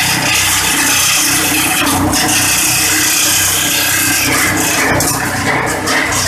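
Engine-driven portable organic-waste chopper running at speed, its small engine and cutting blades shredding grass with a loud, steady noise.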